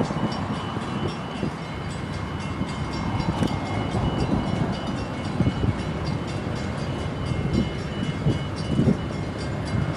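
Two diesel-electric locomotives rumbling as they slowly haul a loaded grain train toward the microphone from a distance, with a faint steady high-pitched whine above the rumble.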